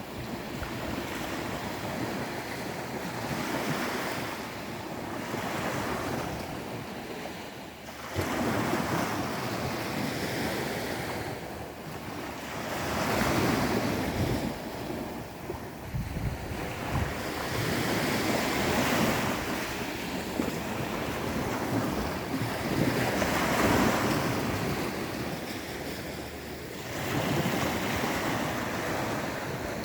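Indian Ocean surf breaking and washing ashore, swelling and fading every few seconds, with wind buffeting the microphone.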